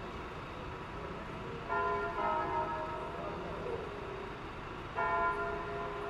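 Church bells ringing the call to Sunday mass: new strikes land about two seconds in, again just after, and near the end, each leaving a long ringing hum of several overlapping tones.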